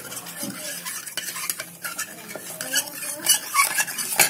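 Metal spoon stirring a brown paste in a stainless steel tumbler, with quick scrapes and clinks against the sides that grow louder in the last second or so.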